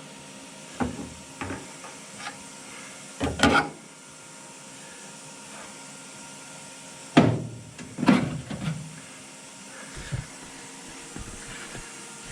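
A handful of irregular knocks and clunks, like objects being handled or set down, with the loudest about three and a half and seven seconds in, over a faint steady hum.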